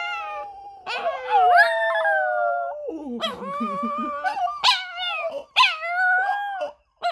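A small dog howling: several long, wavering howls in a row with short breaks between them.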